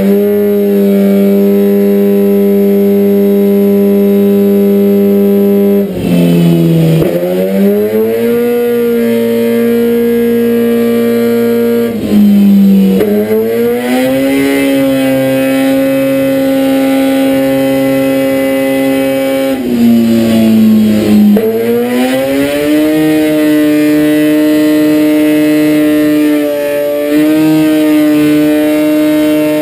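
2011 Kawasaki ZX-10R's inline-four engine running under load on a dyno rollers. It is held at a steady pitch in stages, and three times it dips briefly and then climbs to a higher steady pitch than before.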